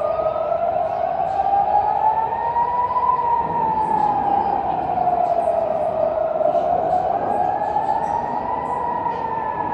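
Civil defence warning siren wailing, its pitch slowly rising and falling about once every six seconds, sounding a public alert.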